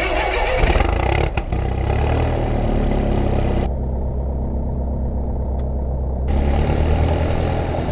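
Piper Cherokee's single piston engine and propeller running steadily at low power just after start-up.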